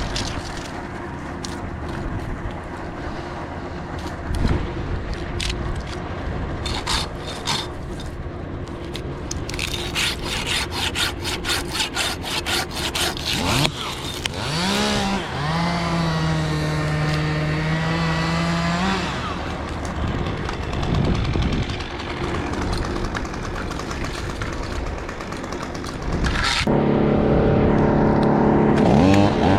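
A small engine running, rising in pitch and holding a steady speed for a few seconds, then starting up louder at a steady pitch near the end; rapid clicking and sawing noises come in between.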